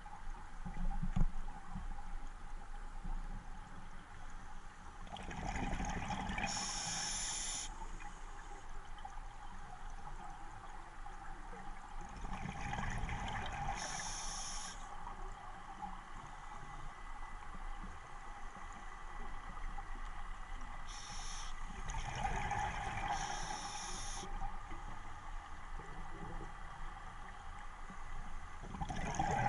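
Scuba diver breathing through a regulator underwater: about three slow breaths, each a hiss of drawn air and a rumble of exhaled bubbles, several seconds apart.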